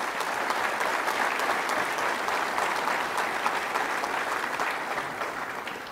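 Audience applauding: dense, steady clapping that gradually dies away near the end.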